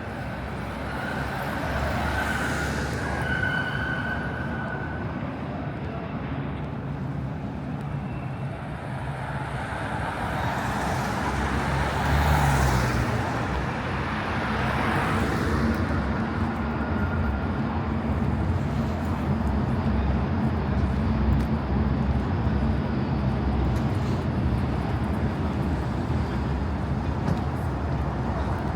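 Road traffic: a steady low rumble of vehicles, with one passing close about twelve seconds in and another a few seconds later.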